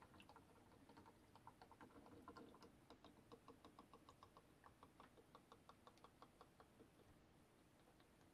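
Faint, quick ticking gurgle, several ticks a second and fading near the end: a Canon GI-20 yellow ink bottle glugging as it drains into the tank of a Canon Pixma G7020 ink-tank printer, with air bubbling up into the bottle.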